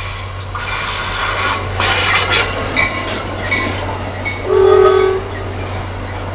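NJ Transit passenger train, led by a Comet cab car and pushed by a GP40FH-2 diesel, running through the station at speed with wheels rushing and clacking over the rails and a few short high squeals. A loud, short horn blast sounds about four and a half seconds in.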